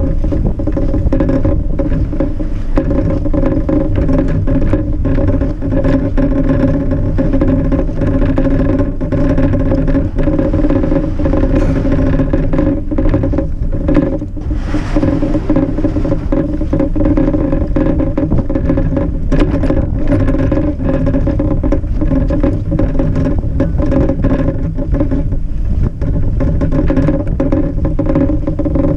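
Cargo bike riding over a snowy street, picked up by a camera on its wooden box: a loud, steady hum at a fixed pitch over low rumble, with frequent small knocks and rattles.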